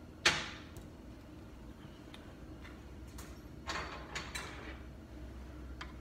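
Metal tools being handled: one sharp metallic clank with a short ring near the start, then scattered light clicks and a brief clatter of metal on metal about four seconds in.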